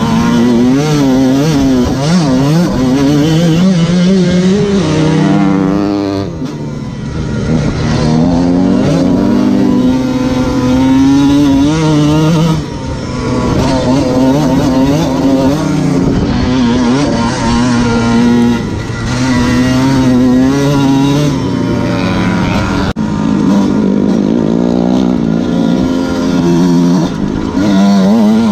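Dirt bike engine under way, pulling and easing off, its pitch rising and falling as the rider works the throttle. The sound dips briefly a few times.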